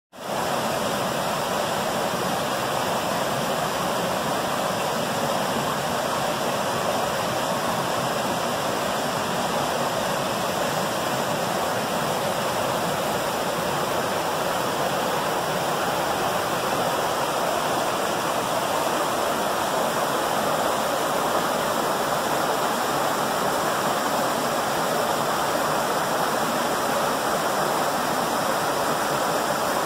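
Steady rushing of a canyon creek tumbling over boulders at a small waterfall. It cuts in suddenly at the start and holds at an even, loud level.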